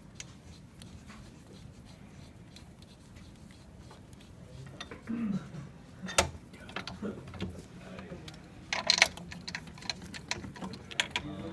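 Scattered metallic clicks and clinks of a disc brake caliper's slide bolts and tools being handled as the bolts are threaded back in, with a sharp click about six seconds in and a short clatter near nine seconds.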